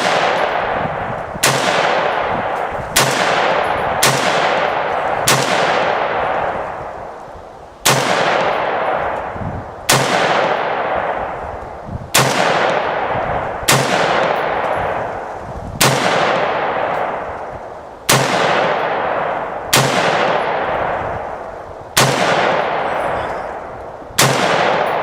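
AR-15 rifle fired in single semi-automatic shots, about fourteen in an uneven rhythm one to two and a half seconds apart. Each crack is followed by a long echo that dies away.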